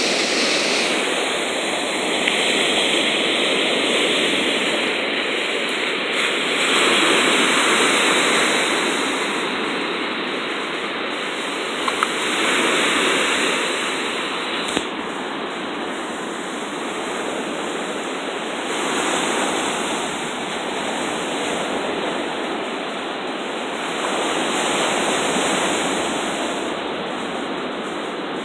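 Sea surf washing onto the beach: a steady rush of water that swells and eases every several seconds as the waves break.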